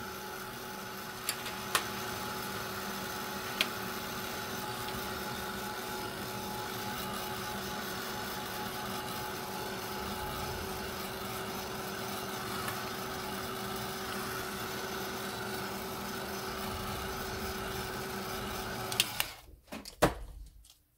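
Handheld craft heat tool running steadily, a motor hum under rushing air, drying a wet Brushos colour wash on card. It cuts off suddenly near the end, followed by a couple of light knocks.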